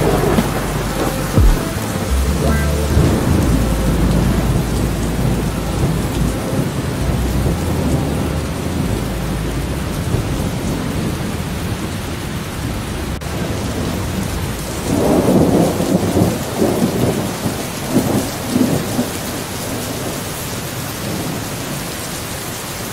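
Steady rain with thunder. A deep rumble of thunder runs through the first few seconds, and a louder rolling peal comes from about fifteen to nineteen seconds in.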